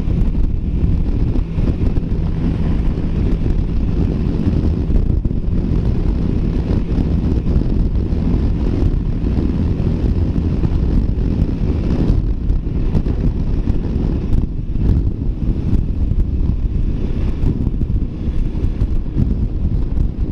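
Heavy wind rushing over the microphone of a motorcycle riding at highway speed into strong, gusty wind, with the Honda Rebel 300's single-cylinder engine running underneath. The wind noise is loud and steady.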